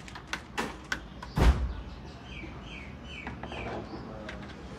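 A few light knocks and one loud clunk, about a second and a half in, from handling parts at an open car engine bay. Then a small bird chirps four times, each call falling in pitch.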